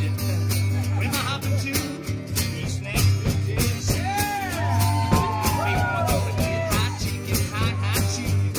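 Acoustic guitar strummed in a steady rhythm during a wordless stretch of a live folk-blues song. In the middle, a voice slides up and down over the strumming.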